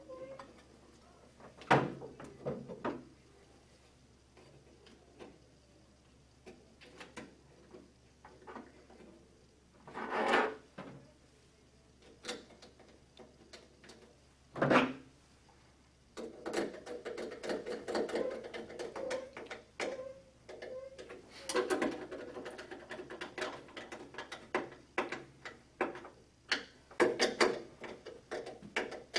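Metal retaining clips being refitted around the rim of a metal canopy light fixture's housing: scattered clicks and knocks with a few louder clunks, then busier clattering and rattling over the second half.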